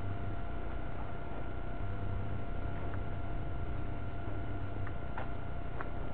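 Steady electrical hum and hiss with a faint, constant high whine: the recording self-noise of a small camera. A few faint, irregular ticks sound over it.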